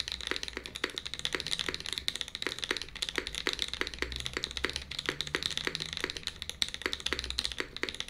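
Continuous fast typing on the Bulwark custom mechanical keyboard, with its aluminium plate, Mode Obscura switches and SkiiData keycaps: a dense, steady stream of keystroke clacks.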